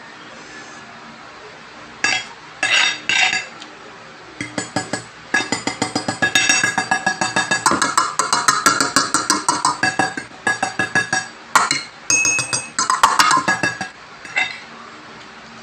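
Metal spoon and fork clinking and scraping quickly against a plate while eating noodles, a fast run of sharp strikes several times a second with a ringing note, from about four to fourteen seconds in, after a few shorter clatters.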